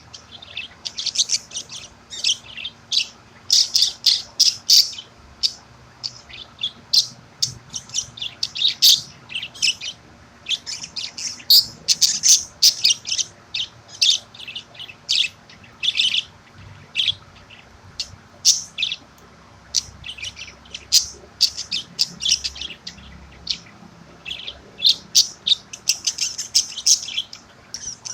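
Budgerigar chirping and chattering: quick runs of short, high chirps with brief pauses between them.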